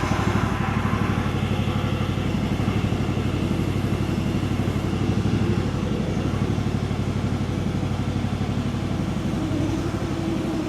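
Engine of a 1-ton Chinese mini excavator running steadily, freshly started and not yet warmed up.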